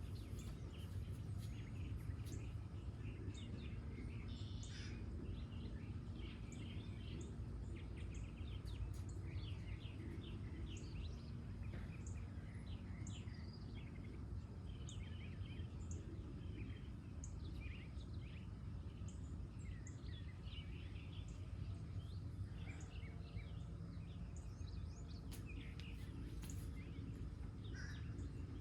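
Several birds singing and calling in short, scattered chirps, over a steady low rumble of background noise.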